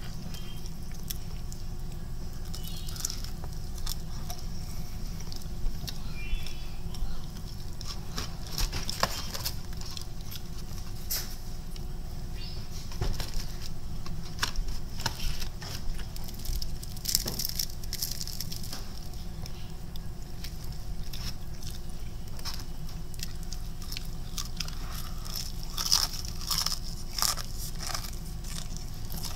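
Close-up chewing of crispy fried chicken: irregular crunches and crackles of the breading, clustered in louder bursts a few times, over a steady low background hum.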